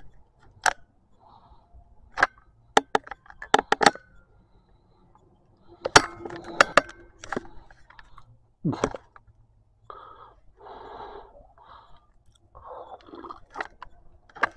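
Handling noise: a scattered run of sharp clicks and knocks, the loudest about six and nine seconds in, with soft rustling in between, as the camcorder is moved about and dishes and takeout containers are shifted.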